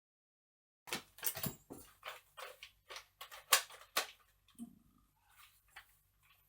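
After about a second of dead silence, plastic packaging and twist ties are handled as a toy foam-dart blaster is freed from its box: a string of irregular rustles and clicks, the loudest about three and a half seconds in.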